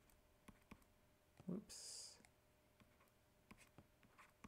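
Faint, scattered clicks and taps of a stylus on a tablet screen while an equation is handwritten. A short hiss comes about two seconds in.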